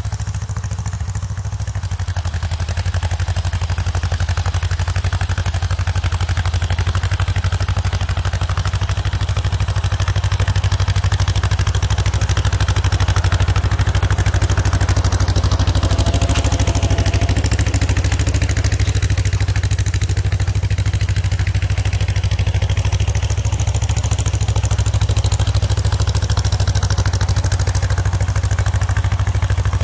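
A 1954 John Deere 40's two-cylinder engine running steadily under load while pulling a disc harrow through tilled soil. It grows louder as the tractor comes close, loudest about halfway through, then eases slightly.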